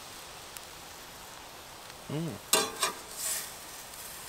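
Frying fish fillets sizzling faintly in a skillet on a camp stove. About two seconds in comes a short hum from a voice, then two sharp clacks of a metal spatula and a brief scraping hiss as it goes back into the pan.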